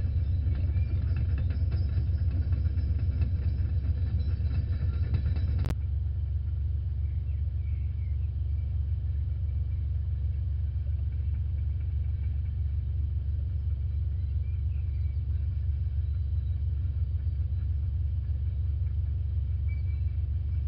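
Steady low rumble, with a single sharp click about six seconds in and a few faint, short, high chirps.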